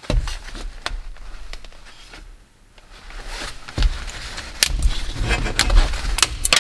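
Clicks, knocks and low handling thumps as the plastic and metal parts of a CD-ROM drive are worked at by hand to get them off, with a short lull about two and a half seconds in before the clicking picks up again.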